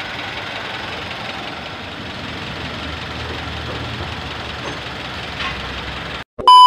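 Honda CR-V engine idling steadily with the cooling system being bled of air through a funnel on the radiator. Near the end it cuts off and a loud, steady beep starts.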